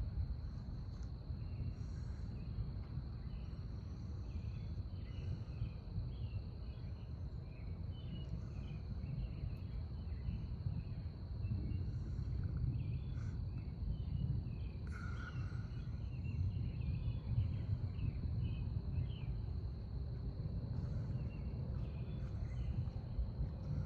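Night insects outdoors: a steady high drone with crickets chirping irregularly over it, above a continuous low rumble.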